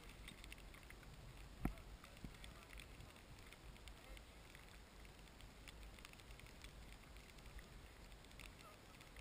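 Near silence: a faint steady low rumble and hiss, with one sharp tap about a second and a half in and a few tiny ticks.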